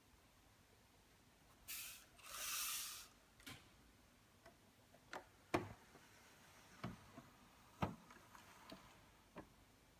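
Faint handling noises of a plastic LEGO model: two short rustles about two seconds in, then about seven light, irregularly spaced clicks and knocks.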